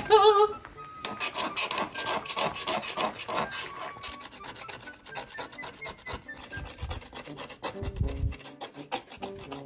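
Fingernails scratching and scraping the printed label layer off a CD that has been softened by boiling, in many quick short strokes that thin out later on. A dull knock near the end.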